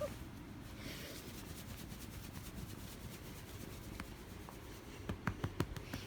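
Bedsheets rustling and rubbing as a cat plays on a bed, with a quick run of light scratches or taps near the end.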